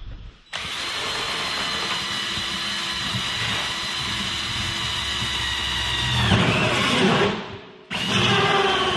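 Sears Craftsman 20-volt cordless drill running a Starrett 3-inch hole saw into the side of an old insulated ice box, giving a steady motor whine. Near the end it drops in pitch under load, stops for a moment, then starts cutting again.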